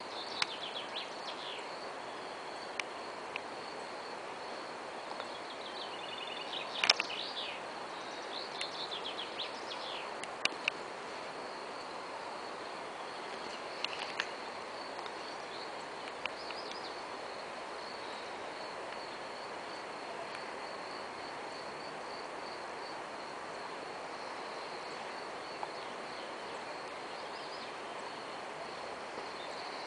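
Chaffinch fledgling and parent calling: flurries of short, quick chirps, mostly in the first ten seconds or so, around the young bird being fed. Under them a steady, high, pulsing trill keeps going, and there is one sharp click about seven seconds in.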